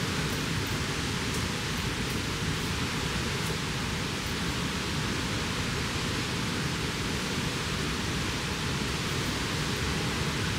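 A steady, even hiss that does not change.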